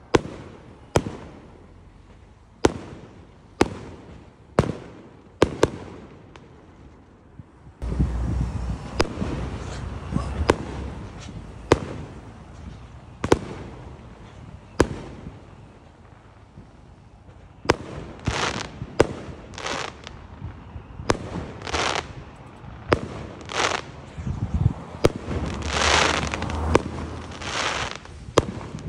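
Fireworks going off: a run of sharp, separate bangs at irregular intervals. About eight seconds in a low rumble sets in, and in the last third the bangs are mixed with short bursts that last up to a second.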